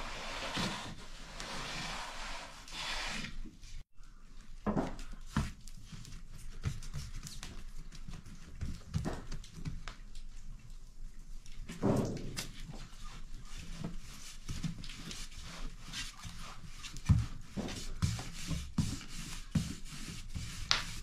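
A wood fire hisses in the bread oven for the first few seconds, then breaks off suddenly. A thin wooden rolling pin follows, rubbing and knocking on flatbread dough on a floured wooden board, in irregular soft knocks with a few louder ones.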